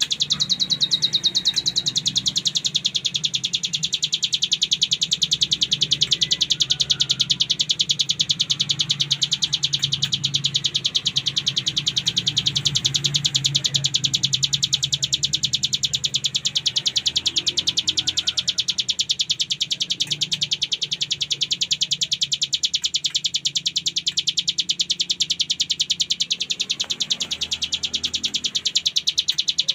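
Ciblek gunung, a prinia, singing its 'ngebren' song: a very rapid, unbroken rattle of repeated notes, over a low steady hum.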